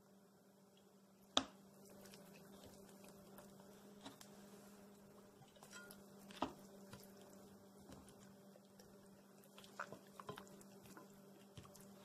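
Faint wet squishing of hands rubbing dark soy sauce into the skin of a raw whole chicken on a plate, with two sharp clicks, about a second and a half in and about six seconds in, and a few smaller ticks near the end. A low steady hum runs underneath.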